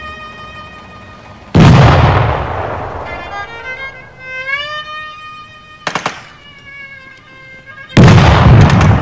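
Two loud explosion booms, one about one and a half seconds in and one near the end, each dying away over a second or so, with a sharp crack between them. Violin music plays under them.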